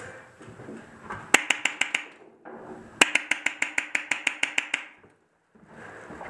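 Airsoft rifle firing two fast, evenly spaced bursts of shots, about eight a second: a short burst about a second and a half in, then a longer one lasting nearly two seconds.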